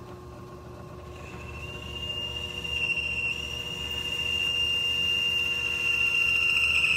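South Bend Heavy 10 metal lathe running, with a steady high whine that starts about a second in and grows louder as the tool takes a roughing cut on the spinning workpiece.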